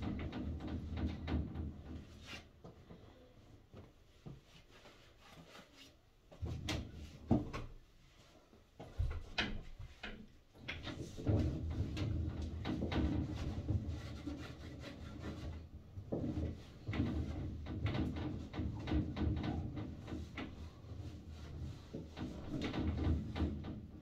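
A cloth rubbing and wiping glass shower panels and their frame, in stretches of scuffing broken by short taps and knocks against the enclosure.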